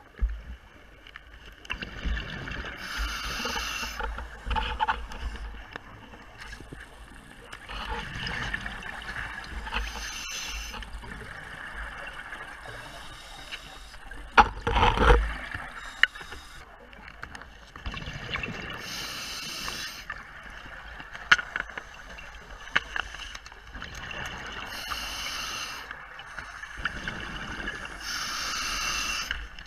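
Scuba diver breathing through a regulator underwater: a hiss with each breath and a gurgling rush of exhaust bubbles, repeating about every five seconds, with one louder rush of bubbles about halfway.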